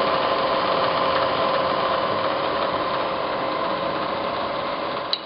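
Bridgeport Series 1 EZ Trak CNC milling machine running, a steady mechanical hum with a constant whine that does not change.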